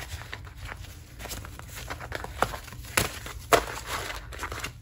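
Paper cash and envelopes being handled: a run of light rustles and irregular taps, with two sharper clicks a little past the middle.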